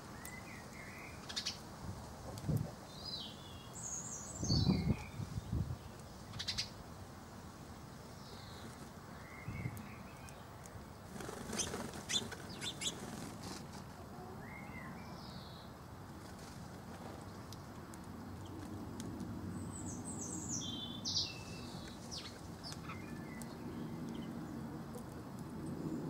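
Small songbirds chirping in short, scattered calls, with bursts of wing flapping and a few sharp taps as a greenfinch and a house sparrow come and go at a wooden nest box.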